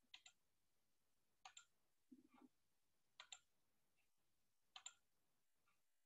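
Faint double clicks of a computer mouse, four pairs about a second and a half apart, over near silence, with a brief faint mumble in between.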